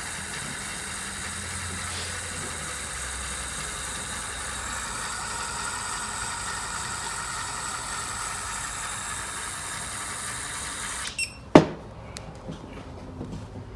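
Internal motor of an IML RESI PD 400 resistance drill running steadily as it drives the needle telescope into position. It cuts off abruptly about eleven seconds in, followed by a sharp click and a few faint clicks.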